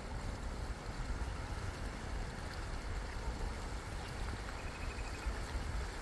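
Wind buffeting the microphone as an uneven low rumble, over the steady wash of small waves on the rocky shore below. About five seconds in comes a brief high trill of quick, evenly spaced notes.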